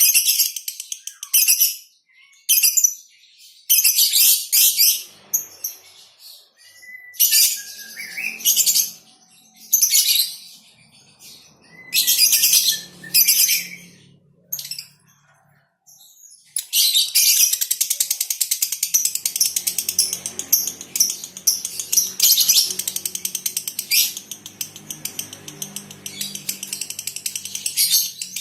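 Lovebirds chattering in repeated short, shrill bursts, then one long unbroken rapid chatter starting about 17 seconds in, the kind of drawn-out song keepers call a female lovebird's 'konslet'.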